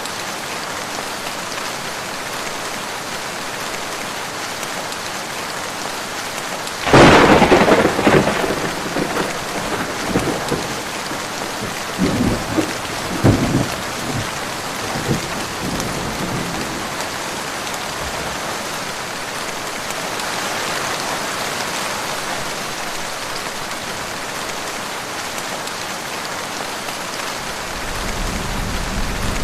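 Heavy steady rain with a sudden close thunderclap about seven seconds in, breaking into crackling, rolling thunder that dies away over the next several seconds; a low rumble of distant thunder builds near the end.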